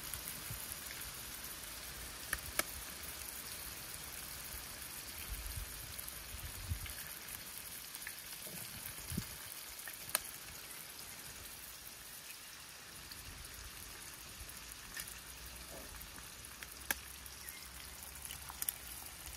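Beaten eggs frying in a pan: a steady sizzle with a few scattered pops.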